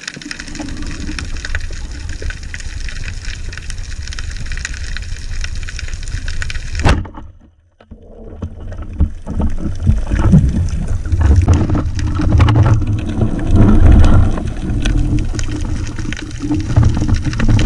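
Underwater sound picked up by a camera on a band speargun: a steady crackling hiss of the sea, a sharp snap about seven seconds in as the speargun fires, then loud low rumbling and knocking of water and handling as the speared fish is pulled in.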